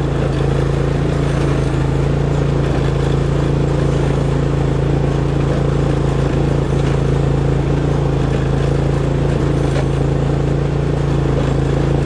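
John Deere GX345 lawn tractor's V-twin engine running steadily at an even speed.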